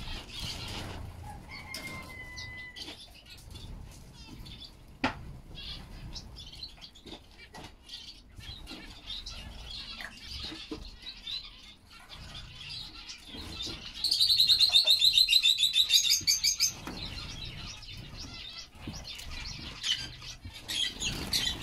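Small aviary finches (white-headed nuns, red-winged pytillias and a blue-capped waxbill) chirping softly with frequent short wing flutters and perch landings. About two-thirds of the way through, a loud, rapid trill of evenly repeated high notes lasts nearly three seconds.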